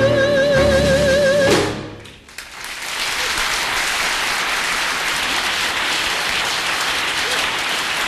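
A singer holding the song's last note with a wide vibrato over backing music, ending about a second and a half in. After a short pause, an audience applauding steadily.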